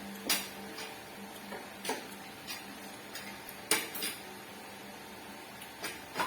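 Utensils clinking against dishes during a meal: a handful of short, sharp clicks and taps spread unevenly, with the loudest one just under four seconds in.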